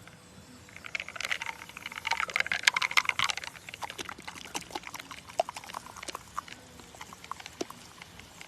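Cola fizzing in a can after Mentos were dropped in, a crackle of bursting bubbles that is densest about one to three and a half seconds in, then thins to scattered pops. The foaming is weak rather than an eruption.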